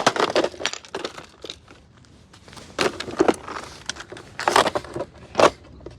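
A coffee maker being smashed: a sharp hit right at the start with cracking and crunching, then more blows about three, four and a half and five and a half seconds in.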